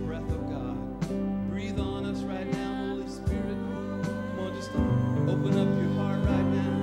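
Live worship band playing a passage without sung words: keyboard, guitars and drums with a steady beat, swelling louder about five seconds in.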